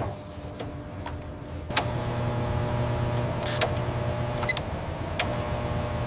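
Factory machinery running with a steady low hum that sets in about two seconds in. A few sharp mechanical clicks sound over it, the loudest about halfway through.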